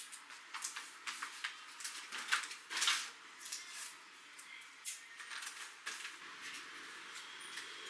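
Irregular light clicks, taps and rustles of objects being handled, with a louder rustle or scrape about three seconds in.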